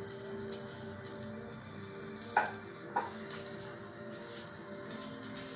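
Pumpkin curry sizzling in a clay pot on a gas flame, a steady fine crackle. Two light knocks come about two and a half and three seconds in.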